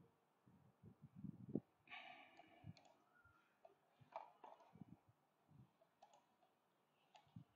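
Near silence: room tone with a few faint scattered clicks and soft thumps, the loudest about one and a half seconds in.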